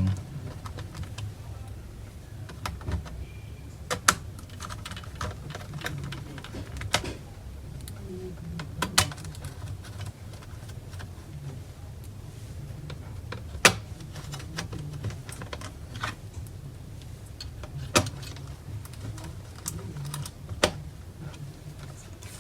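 Scattered sharp clicks and small taps of screwdriver work on a laptop's plastic case as its screws are put back in, over a low steady hum.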